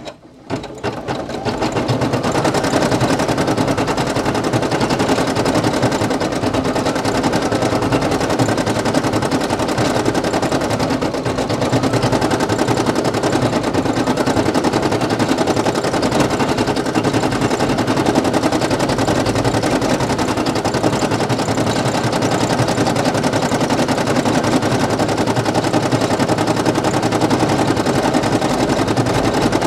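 Brother PE800 embroidery machine starting back up and stitching, its needle clattering in a fast, steady rhythm after a short run-up over the first couple of seconds.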